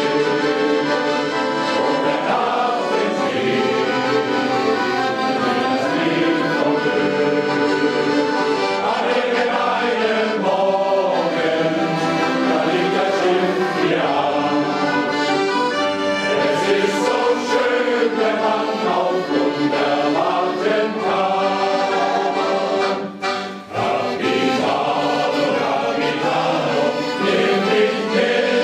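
A men's sea-shanty choir singing in parts with accordion accompaniment, with a brief break in the sound about three quarters of the way through.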